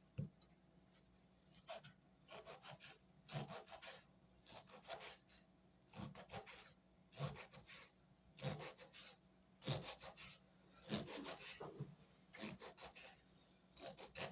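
Faint rhythmic scraping: a short rasping stroke with a soft knock, repeated about once every second and a quarter.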